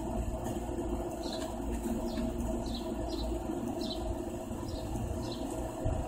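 Small birds chirping in short, repeated high notes over a steady low hum.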